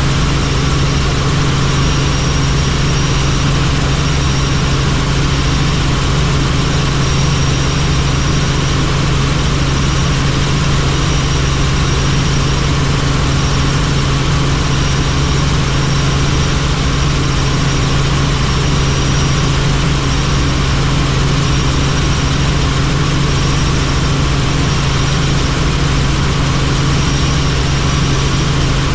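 Helicopter in flight: a loud, steady drone of engine and rotor with a strong low hum, unchanging throughout.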